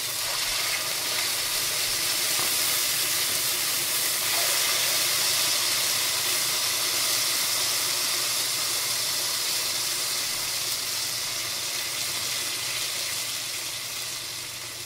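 Marinated chicken breasts sizzling and popping in hot oil in a stainless steel skillet: water from the marinade goes under the oil, turns to steam and makes the oil spit. The sizzle swells after about two seconds and eases off near the end.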